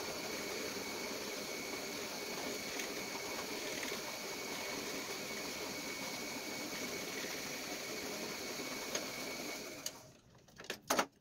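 Bench drill press running with a half-inch Forstner bit boring into soft, beetle-eaten wood: a steady motor hum with a high whine. It stops about ten seconds in, followed by a couple of sharp clicks.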